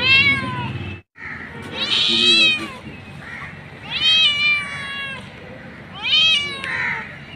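A mother cat calling for her kittens: four drawn-out meows about two seconds apart, each rising then falling in pitch. The sound cuts out completely for a moment about a second in.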